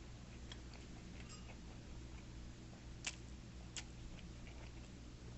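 Quiet eating sounds: a few light clicks of chopsticks against the dishes, two clearer ones past the middle, over a faint steady low hum.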